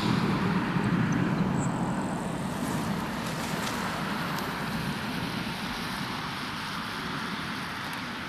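Steady outdoor wind noise with a low vehicle rumble that fades over the first few seconds.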